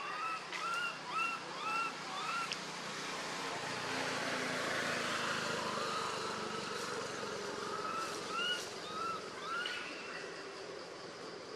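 Baby macaque crying in two runs of short squeaky calls that rise and fall in pitch, about two a second. Between the runs, a rushing noise swells and fades.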